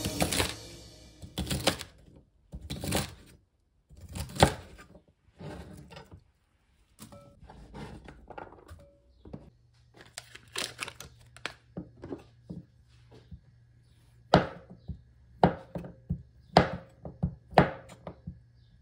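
A chef's knife thunks against a wooden cutting board, cutting asparagus: three strokes a second or so apart. Then comes the rustle and tearing of a cardboard butter carton being opened. Near the end the knife slices a stick of butter with sharp knocks about once a second.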